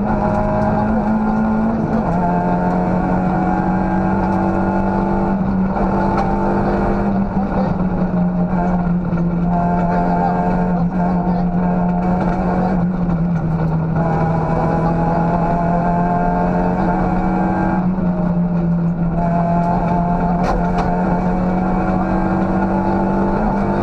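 Citroën Saxo group A rally car's four-cylinder engine at full stage pace, heard from inside the cabin: loud and revving hard, its note climbing through each gear and dropping back at several quick gear changes, over steady road noise.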